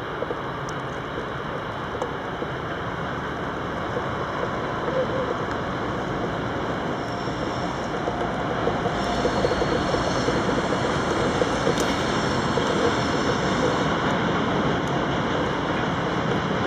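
Freight train with an Alsthom-built NS 1600-class electric locomotive and a MaK 6400-class diesel hauling tank wagons, running past. A steady rumble of wheels on rails grows louder as it comes closer, with a faint whine in the second half.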